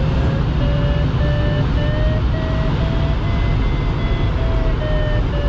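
Glider's audio variometer beeping about twice a second, the pitch rising slightly and then easing, over the steady rush of air past the canopy. The beeps signal that the glider is climbing in weak lift.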